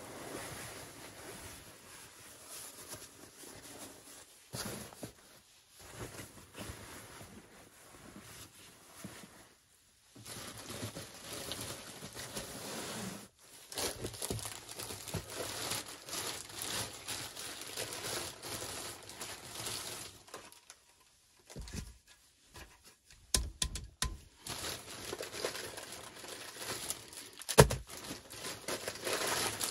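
Plastic carrier bag rustling and crinkling as items are taken out of it. In the later part come several sharp knocks, as of metal cans being set down on the platform.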